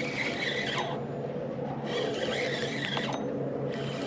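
Fishing reel being cranked to bring in a hooked small trout, its gears whirring in runs of about a second with short pauses between. A steady low hum runs underneath.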